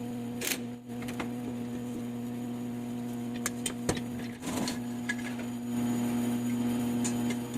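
A steady electrical hum, with a few light clicks and taps over it and a brief noisy scrape about four and a half seconds in.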